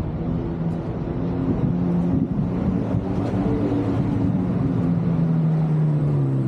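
Car engine running steadily, its pitch shifting a few times.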